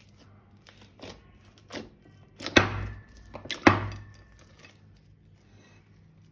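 A handful of sharp clicks while working with slime materials. Two small ones come early and two much louder ones follow about a second apart, near the middle.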